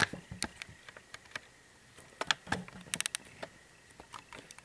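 Light, scattered clicks and taps, with a quick run of four about three seconds in.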